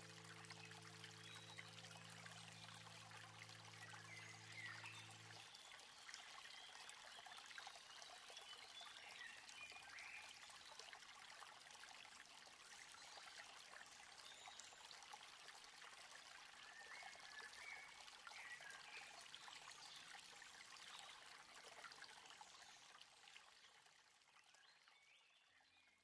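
Very faint, steady trickling-water ambience, with a few held low music notes that end about five seconds in and a fade near the end.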